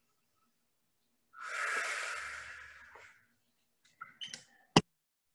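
A woman's long, breathy exhale lasting about two seconds, fading out, followed near the end by a few soft taps and one sharp click.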